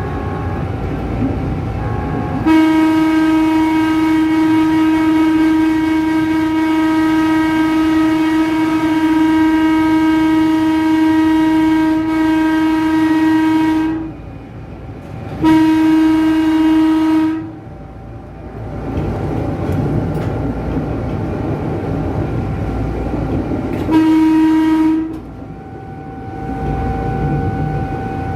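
Electric horn of a Tokyu 8500-series electric train, heard from the cab: one long steady blast of about eleven seconds, then a blast of about two seconds and a short one of about one second. Rail running noise fills the gaps between them.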